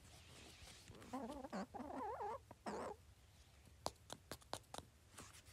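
A sick hen making soft, quavering warbles, a few wavering notes over about two seconds, followed near the end by several sharp clicks.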